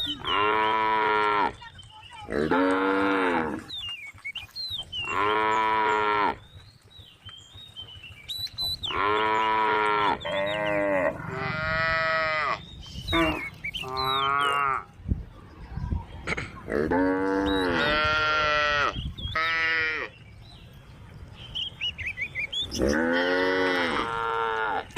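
Cows mooing over and over, about ten long calls that rise and fall in pitch, some coming close together as several animals call back and forth.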